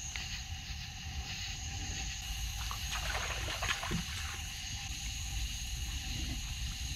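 A night swamp chorus of insects and frogs keeps up a steady, high-pitched trilling. Under it comes the sloshing and splashing of someone wading through shallow swamp water, with a few sharper splashes around three to four seconds in.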